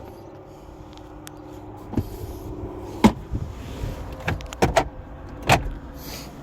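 A low steady hum, then a series of sharp clicks and knocks as parts of a car are handled.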